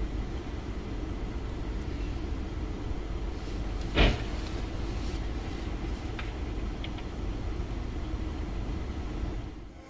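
Car driving on a road with steady low road and engine noise. One short, sharp bang about four seconds in, then a couple of faint clicks.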